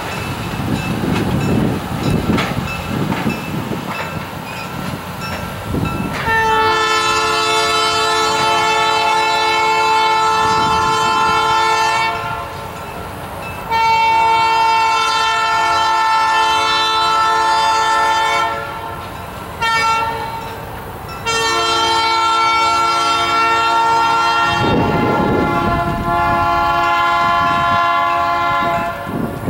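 Train horn sounding the grade-crossing signal: two long blasts, one short, then a long one. Before the first blast there is the rumble of the passenger train rolling on the rails.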